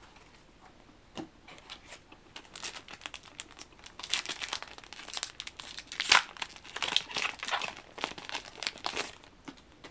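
Foil wrapper of a Yu-Gi-Oh booster pack crinkling and being torn open, in irregular crackles that get busier from a few seconds in.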